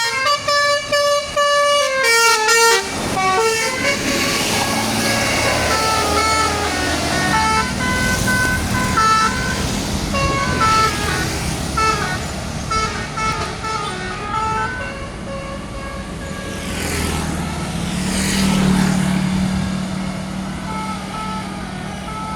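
Telolet basuri, an Indonesian multi-trumpet air horn with top-mounted trumpets, playing a tune of short stepped horn notes. It is loudest over the first few seconds, then runs through a quicker sequence of notes. Near the end a low steady drone comes in under it.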